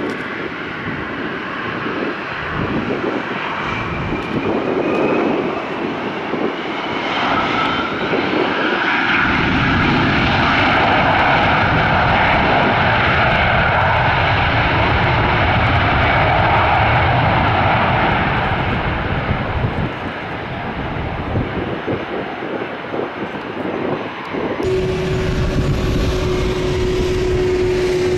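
Jet airliner's engines running loud as it passes, with whining tones rising in pitch over the first few seconds; the noise peaks midway and then eases. About three and a half seconds before the end the sound switches abruptly to a steady hum.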